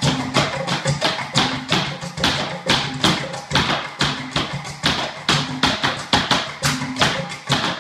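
Rapid rhythmic footwork: heeled dance shoes striking a wooden floor several times a second in quick taps and stamps.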